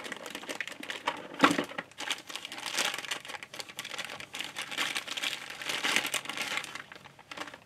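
Clear plastic packaging crinkling and rustling as a model train tender is handled and unwrapped from it, with a sharp snap about a second and a half in.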